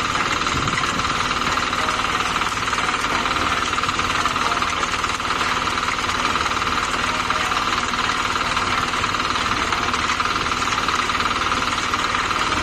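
Engine of concrete-pouring equipment running steadily at a constant speed, with a dense, fast rattling chatter.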